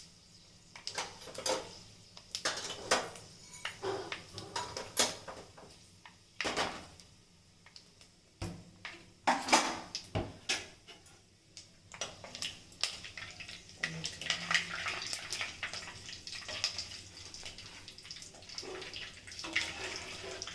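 A metal spoon clinking and scraping against a pan while whole spices (fennel, fenugreek and black peppercorns) are tempered in hot groundnut oil. From about twelve seconds in, a steady sizzle of the spices frying.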